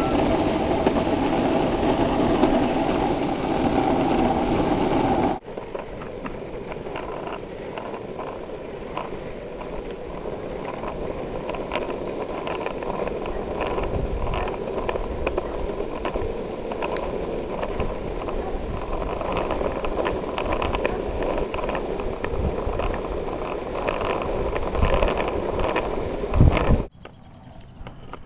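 Longboard urethane wheels rolling over pavement, a steady rolling rumble with irregular clicks from cracks and joints in the surface. It is preceded by a louder steady hum that cuts off about five seconds in.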